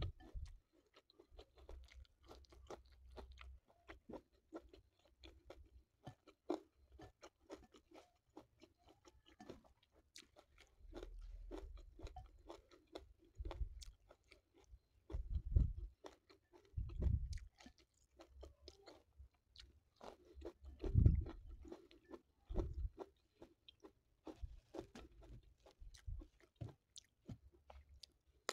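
Close-miked chewing and mouth sounds of someone eating a rice meal by hand, with many small wet clicks and smacks. A few dull low thumps come in the second half.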